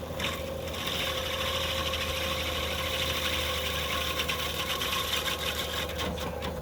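Diamond Mowers Miller stump grinder on a skid steer, its grinding wheel cutting into a wood stump over the steady running of the machine. The grinding starts just after the beginning, holds steady, then gives way to a spatter of clicks near the end.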